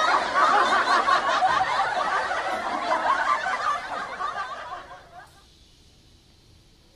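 Laughter, several voices chuckling and snickering, fading out about five seconds in and leaving near silence.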